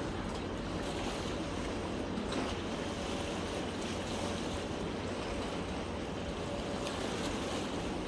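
Sea water lapping and washing against a rocky shoreline: a steady, even wash of small waves.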